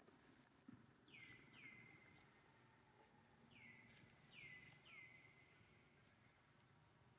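Faint bird chirps in short runs of two or three, each call dropping in pitch, over a quiet background.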